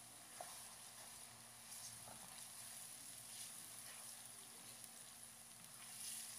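Faint sizzling of sliced onions and ginger-garlic paste frying in oil in a pan, with a few light clicks of a spoon stirring.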